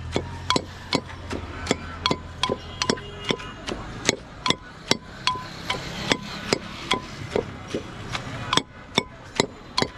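Steady chopping of raw fruit for bhorta, sharp knife strokes on a cutting board about twice a second.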